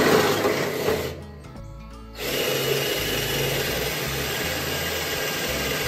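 Cordless drill boring a hole into a metal mounting bar in two runs: a short burst at the start, a pause about a second in, then a steady run from about two seconds in that stops abruptly near the end.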